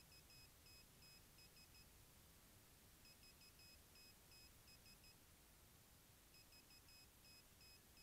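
Near silence with a faint, high, repeating pattern of short beeps: a run of about eight beeps, repeating about every three seconds.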